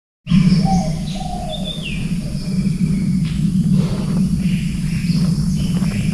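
Birds chirping, one call gliding downward about a second and a half in, over insect noise and a steady low hum.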